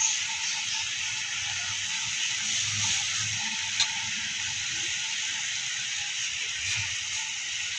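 Skipjack tuna sizzling steadily in a double-sided grill pan over a gas stove as it is basted with sweet soy and butter sauce, with a few light clicks of a spoon or brush against the pan.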